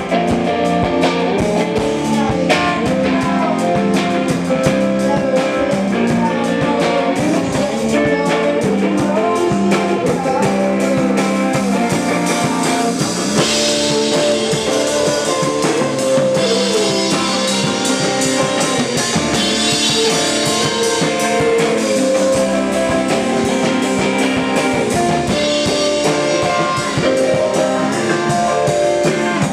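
Live rock band playing: electric guitar over a drum kit, the cymbals coming up louder at a few points.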